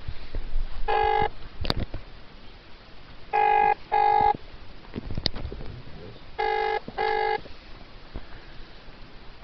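British telephone ringing tone heard down a phone line while a call is being put through: the double 'brr-brr' burr, repeating about every three seconds. A couple of sharp clicks are on the line between the rings.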